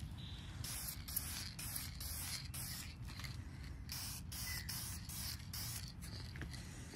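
Aerosol can of Dupli-Color vinyl and fabric paint hissing in a string of short bursts as it sprays a white coat onto a vinyl boat seat cushion.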